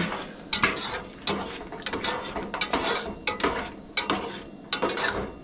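A metal spatula scraping and clanking against a stainless steel saucepan in quick, irregular strokes, two or three a second, as eggs are scrambled.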